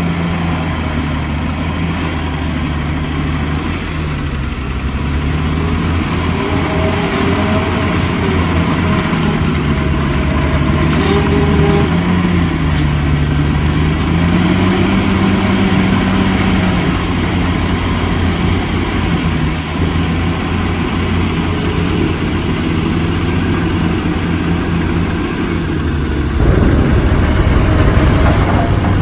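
Heavy diesel engine of an earthmoving machine running under varying load, its pitch sagging and rising several times. Near the end it shifts and becomes louder.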